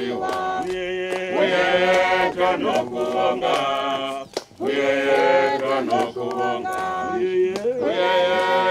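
A group of men's and women's voices singing a hymn together in harmony, in sustained sung phrases with a short break about four and a half seconds in.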